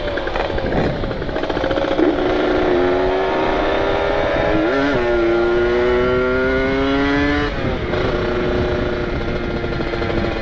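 Ported Kawasaki Ninja 150 RR two-stroke single-cylinder engine pulling under throttle while riding, its pitch climbing steadily for several seconds with a short break about five seconds in. The pitch drops about seven and a half seconds in as the throttle eases. This is a running-in ride: the engine now revs smoothly through the mid-range.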